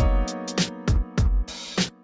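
Background music with a steady drum-machine beat of deep kicks and sharp snare strikes over held keyboard notes.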